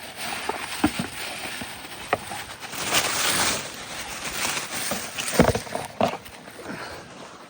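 Rustling and handling of a small package as it is opened, with a few sharp knocks; the loudest knock comes about five and a half seconds in.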